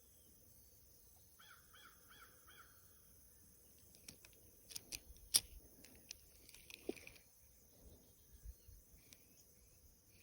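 A bird gives a quick series of about five harsh calls about a second and a half in. Faint scattered clicks and ticks follow midway, the sharpest a little past five seconds.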